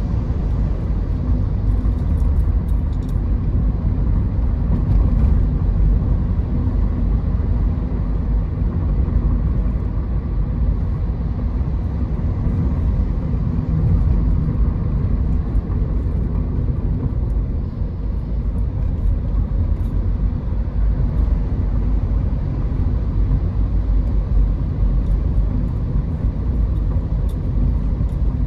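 Steady low rumble of a car on the move: road and engine noise.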